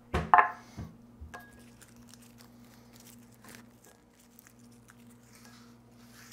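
A glass bowl knocks down onto a wooden cutting board near the start. Then come faint rustling and small clicks as the dry skins are peeled off smashed garlic cloves and the cloves are dropped into the bowl.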